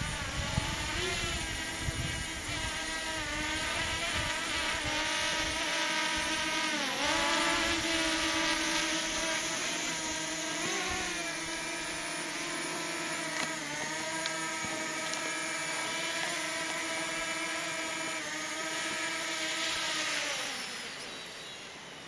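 Small camera drone hovering and descending to land, its propellers giving a steady multi-toned whine that dips briefly in pitch a few times as it is steered. The whine fades near the end as it comes down.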